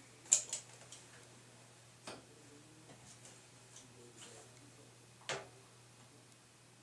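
A few sharp clicks from a hand caulking gun's trigger and ratchet while a silicone bead is run. The loudest is a double click about a third of a second in, with single clicks near 2 s and 5 s, over a faint steady hum.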